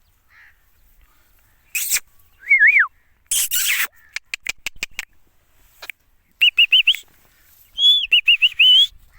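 Indian ringneck parakeet calling: two short harsh screeches mixed with whistled notes, then quick runs of high chirping notes in the second half.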